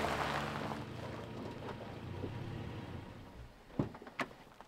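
Toyota Tacoma pickup rolling to a stop on gravel with its engine running low, the rumble dying away; two sharp clicks come near the end.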